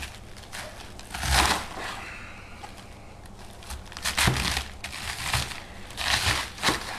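A knife cutting through a raw head of cabbage on a cutting board: four or five crisp, crunching cuts, unevenly spaced.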